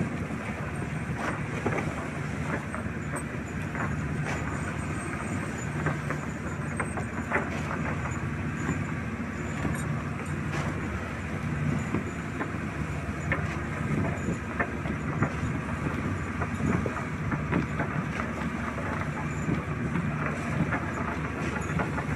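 Small fishing boat's engine running steadily, a constant low hum, with scattered knocks and clicks over it.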